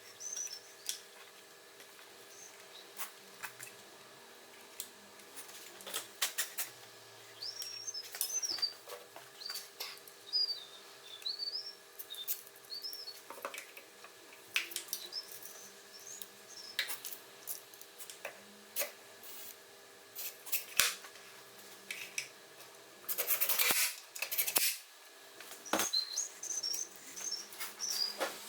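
Scattered small clicks and taps, as of hand-work with small parts, with a bird chirping at intervals in the background; a short, louder rustling burst comes about two-thirds of the way through.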